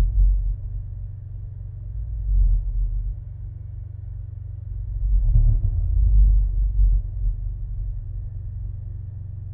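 Bass-heavy electronic drone from an installation soundtrack remixed from live experimental performances. Deep, steady low tones swell louder about two seconds in and again for a second or so around five to six seconds in.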